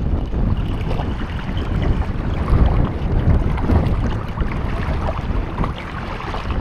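Wind buffeting the microphone in a loud, uneven rumble, over choppy lake water washing against the shore.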